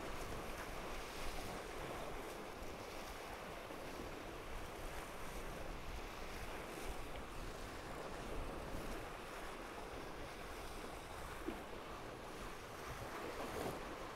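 Water rushing and splashing along the hulls of a Tornado racing catamaran under sail, with wind over the microphone and a few brief sharper splashes.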